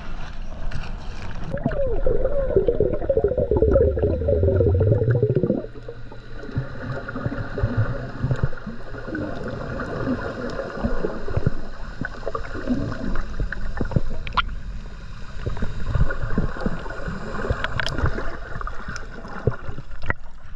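Water rushing and bubbling over the microphone of a submerged action camera, loud for the first few seconds and then cut off abruptly. After that comes quieter, muffled underwater sound with scattered knocks and clicks.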